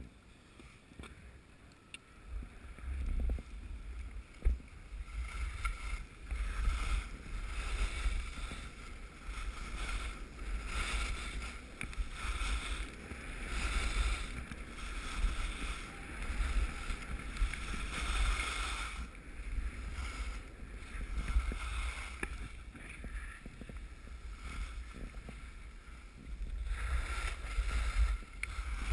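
Skis swishing over snow through a run of turns, the hiss swelling and fading every couple of seconds, over low wind buffeting the camera's microphone; it starts about three seconds in.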